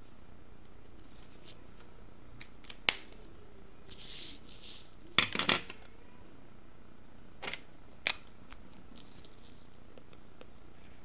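Felt-tip markers being handled while swapping colours: a sharp click about three seconds in, a short scratch of marker on paper around four seconds, a cluster of clicks and clatter a little after five seconds, and two more clicks near eight seconds, the snap and rattle of caps and marker barrels.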